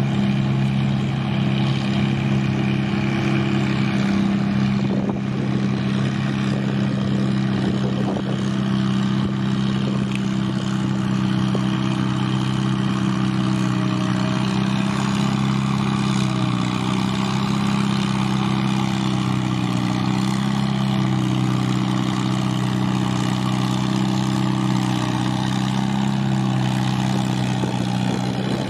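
Tractor engines running steadily, one even, unchanging engine note throughout.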